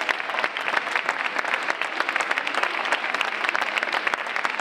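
School assembly audience applauding: many hands clapping in a dense, steady round of applause.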